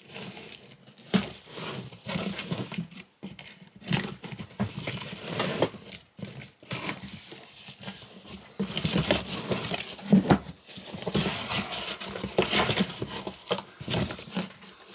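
A cardboard parcel being cut open with a razor blade and its packing pulled apart: irregular rustling and crinkling with scattered knocks, busier in the second half.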